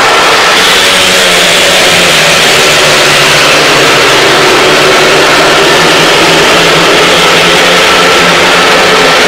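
Four 500cc single-cylinder speedway bikes racing together, their engines running hard in a loud, continuous blare with the pitch rising and falling slightly as they power through the bend.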